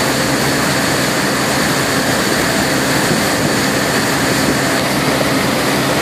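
Axis wake boat's inboard engine running steadily under way, mixed with the loud rush of its churning wake water; an even, unbroken roar.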